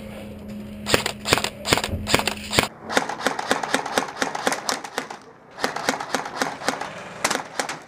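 Airsoft rifles firing rapid bursts of sharp, snapping shots, several a second, with a short pause past the middle. A low steady hum under the first shots stops about two and a half seconds in.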